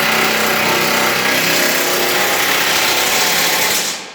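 Impact wrench running in one long continuous burst as it runs bolts tight on a truck-body subframe bracket, cutting off shortly before the end.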